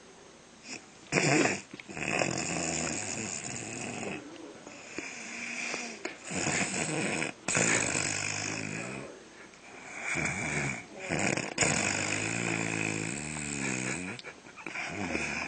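A woman snoring in deep sleep: a run of loud snores, one every two or three seconds, some with a wavering pitch.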